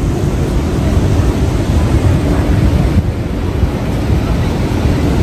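Steady roar of rushing water from the Niagara River rapids and Horseshoe Falls, with wind buffeting the microphone and adding a heavy low rumble.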